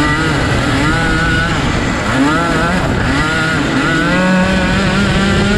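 Dirt kart engine racing, heard onboard: its pitch climbs and drops again and again as it revs up and backs off, over a steady rush of noise, with other karts' engines close by. It holds a steadier note for the last second or so.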